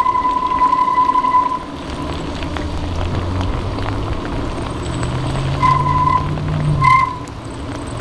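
Front brake of a Magnum Metro e-bike squealing with a steady high-pitched tone that cuts off about a second and a half in, then two short squeals near the end as the brake is applied again. Steady riding noise runs underneath.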